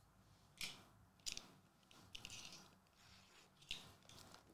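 Faint rustles and light taps of sealed foil Magic: The Gathering booster packs being handled on a table: four brief soft sounds spread through the near silence.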